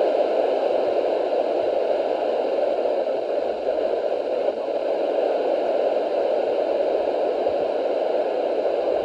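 Weather radio receiver hissing with static as the broadcast signal drops out, a steady noise that covers the warning voice.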